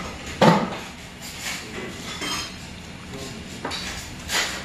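Metal spoon and tableware clinking and knocking against an earthenware soup pot and dishes. There is a sharp knock about half a second in, softer clinks after it, and another knock near the end.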